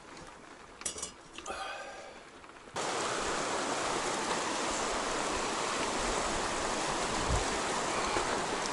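Fast, shallow river running over rapids: a steady rush of water that starts abruptly about three seconds in. Before it there is a quiet stretch with a couple of brief, faint sounds.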